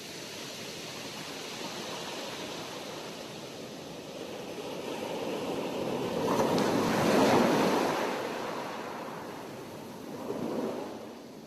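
Sea waves breaking and washing on a shore, one wave swelling to its loudest about seven seconds in and a smaller one near the end.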